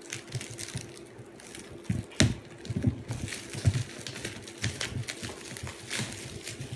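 A sneaker box and its packing being handled: irregular light knocks, taps and rustling, with a sharper knock about two seconds in and another near six seconds.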